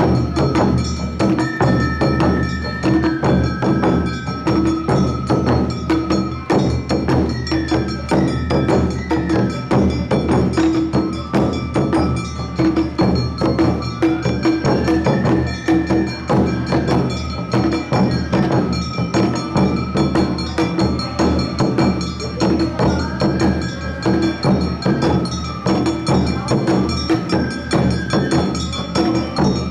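Awa Odori festival music from the troupe's narimono band: a high bamboo-flute melody over a fast, steady two-beat rhythm of taiko drums and the clanging kane hand gong.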